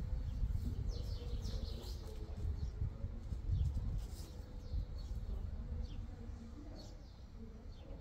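Small birds chirping: many short, quick falling chirps, thickest in the first few seconds and thinning out toward the end, over a steady low rumble.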